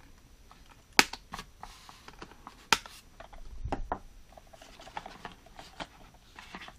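Hard plastic toy jeep and trailer being handled: sharp plastic clacks and knocks, the two loudest about a second and nearly three seconds in, with a quick run of small clicks about five seconds in.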